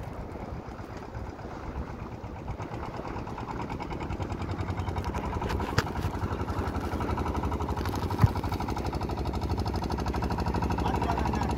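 A boat engine running with a rapid, even thudding that grows louder from about four seconds in. Two sharp knocks stand out, the louder one about eight seconds in.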